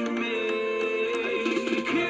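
Music playing through a Billboard BB377 mini portable Bluetooth speaker.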